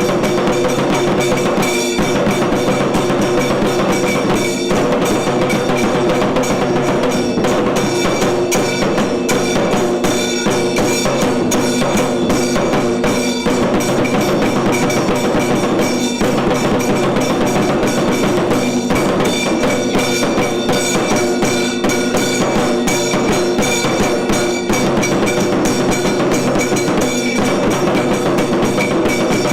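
Tiru Kailaya Vadyam, the Tamil Shaiva temple ensemble, playing: loud, fast, continuous drumming and percussion strokes, with steady held tones sounding over them throughout.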